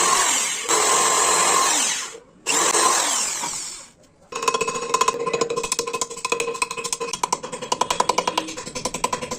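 A power tool running loudly, cutting out briefly about two seconds in and again near four seconds, then starting up again with a rapid rattle.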